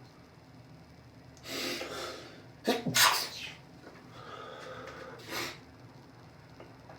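A person sneezing in an allergy fit: a noisy drawn-in breath about a second and a half in, then a sharp, loud sneeze just before the three-second mark. A fainter breathy sound follows, ending in a short puff about five seconds in.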